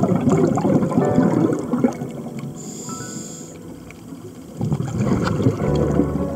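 Scuba diver's breathing picked up underwater: a rush of exhaled bubbles, a short hiss of the regulator on the inhale about three seconds in, then another burst of bubbles near the end. Faint music notes sound underneath.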